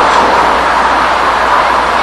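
Children's ride-on toy rolling over pavement: a steady, even grinding noise from its plastic wheels.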